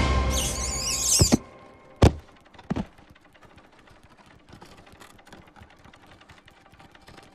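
A cartoon hamster lets out a high wavering squeal that cuts off suddenly, then lands flat on sand with a heavy thud about two seconds in. A smaller thud follows under a second later, and the rest is quiet.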